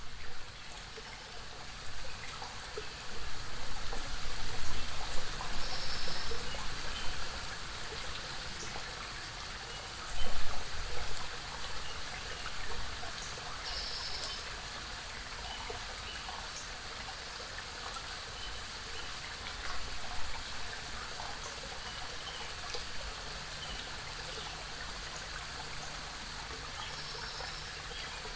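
Forest waterfall and creek water splashing and flowing steadily, with uneven surges that swell louder a few seconds in and again around ten seconds in. A few faint short high-pitched notes are scattered over it.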